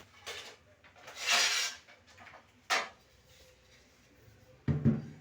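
Glass fridge shelf being slid into its slot: a scraping slide about a second in, a sharp click, then a low thump near the end as it settles.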